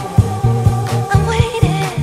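Funky disco house music with a steady thumping beat and a bass line.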